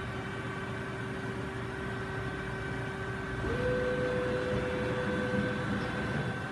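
Johnford ST-40A CNC turning center running with a steady machine hum. About three and a half seconds in, a motor whine rises quickly in pitch, holds for about two seconds and then stops, as the machine makes a manually commanded movement.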